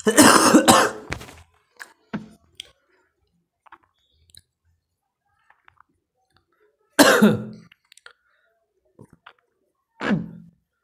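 A man coughing and clearing his throat: a long rough burst at the start, then two shorter ones about seven and ten seconds in. Faint taps of a marker on a whiteboard come in between.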